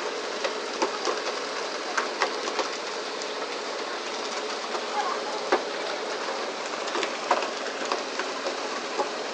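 Steady rushing of water and wind around a fishing boat under way, with scattered sharp clicks and knocks at irregular moments.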